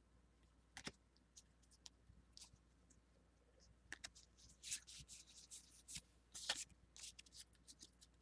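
Faint, scattered crackling and rustling of Pokémon trading cards and a foil booster-pack wrapper being handled, busiest in the middle.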